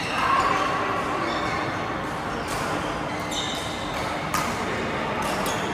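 Badminton rally: rackets striking the shuttlecock several times, the hits about a second apart from about halfway in, with short high squeaks and faint voices in the background.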